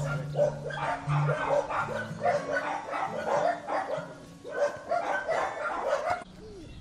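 Dogs barking repeatedly, about two to three barks a second, stopping shortly before the end.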